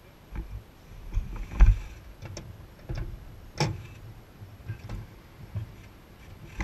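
Scattered knocks, clicks and thumps of someone moving about and handling things at the cockpit of a parked P-51 Mustang, carried through the airframe. A sharp click about three and a half seconds in stands out.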